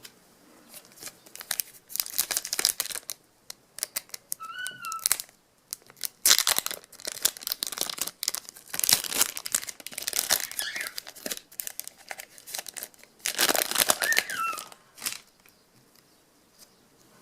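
Foil wrapper of a trading card pack being torn open and crinkled, in irregular bursts of rustling.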